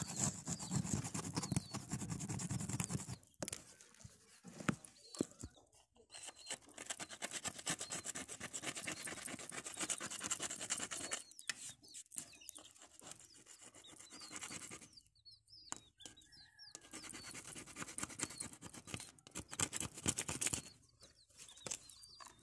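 A hard scraping tool scratching dried cement off the cracked glass of a solar panel in quick strokes, in several bouts with short pauses between them.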